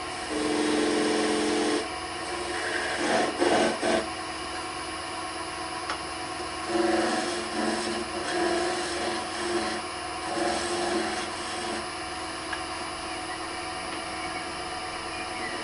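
Wood lathe motor running steadily while a turning tool cuts the spinning wood, the scraping, rasping cut coming and going in bursts: a few seconds in, then again from about seven to eleven seconds.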